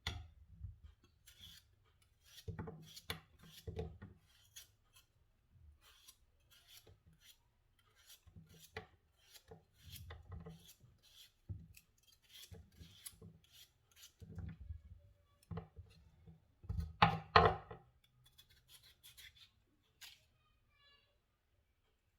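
Potato being peeled by hand, a blade scraping off the skin in short, irregular strokes. Two louder knocks come a little past three-quarters of the way through.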